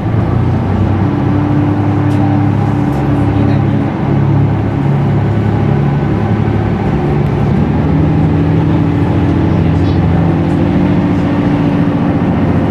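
Train running, heard from inside the carriage as it pulls out of a station and picks up speed. A steady low hum whose pitch steps up and down.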